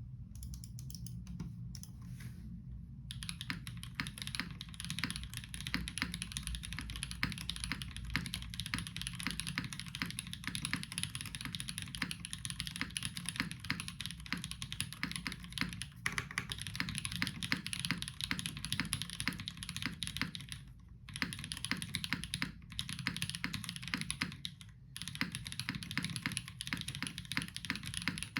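Continuous typing on a gasket-mounted S&R Iron165 mechanical keyboard with an aluminium plate and GMK keycaps, on switches thought to be JWK Tungstens: a few scattered keystrokes at first, then a fast, steady stream of key clacks with two short pauses later on.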